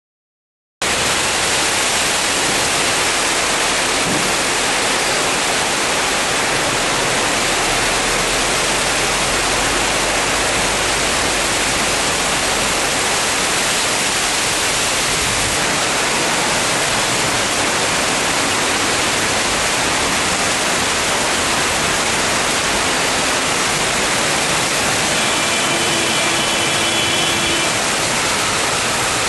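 A storm downpour: a loud, even rushing hiss of heavy rain that cuts in suddenly just under a second in and holds steady.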